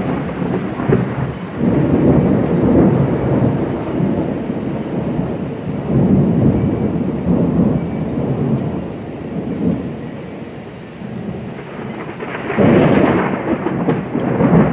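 Thunder rumbling in rolling waves that swell and fade several times, with a louder, sharper peal near the end.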